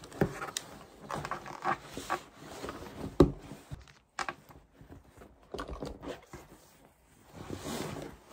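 Packing-up handling noise: a laptop handled on a table, then a canvas tote bag rustling as things go into it and it is lifted, with scattered knocks and clicks. The loudest is a sharp knock about three seconds in.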